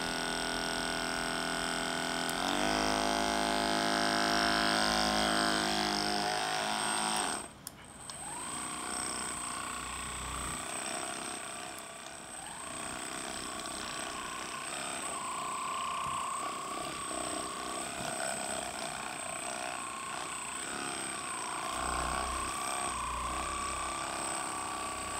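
Cordless percussion massage gun's motor running on test after reassembly, stepping up in pitch twice over the first few seconds, then cutting off abruptly. It starts again and runs on with a pitch that wavers as it is held against the arm.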